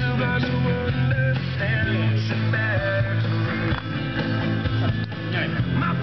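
Rock music with guitar playing through the car's audio system, heard inside the cabin.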